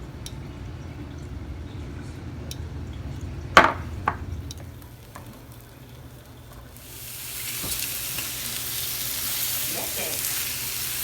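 Chicken pieces frying in oil in a pan: a steady sizzle sets in about two-thirds of the way through and holds. Before it, two sharp knocks from cookware come a half-second apart.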